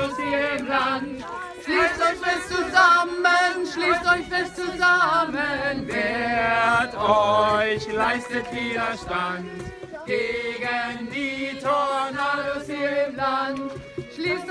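A choir of men and women singing together, holding notes in phrases a few seconds long with short breaks between them.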